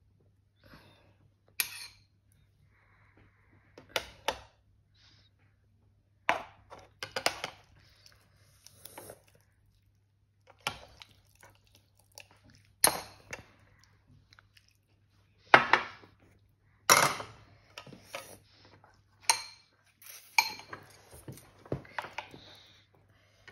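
Metal ladle and chopsticks knocking and clinking against a saucepan and bowl as instant noodles and broth are served, in short separate clinks every second or two, the loudest about two-thirds of the way in.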